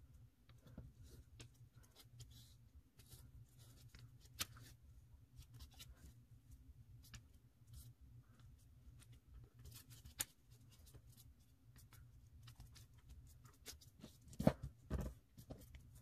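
Faint rustling and crinkling of a sheet of origami paper being folded and creased by hand, with scattered small crackles as the folds are pressed. A sharper crackle comes about four seconds in and another about ten seconds in, and a louder pair of knocks near the end; a steady low hum runs underneath.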